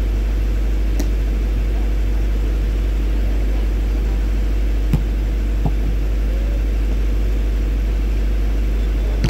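Steady low rumble, like wind on the microphone, over open-air background noise. About five seconds in come two dull thumps a fraction of a second apart: a volleyball being struck.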